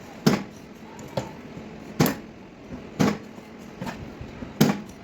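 Hammer tapping on a car's sheet-metal body panel during dent repair: short, sharp strikes at about one a second, each with a brief ring.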